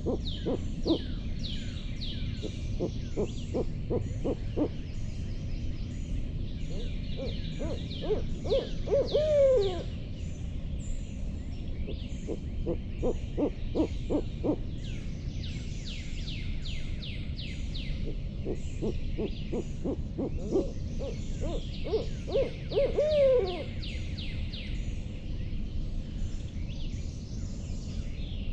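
Barred-owl-style hooting: bouts of quick hoots, two of them ending in a loud, drawn-out falling "hoo-aww" about nine seconds in and again near the end.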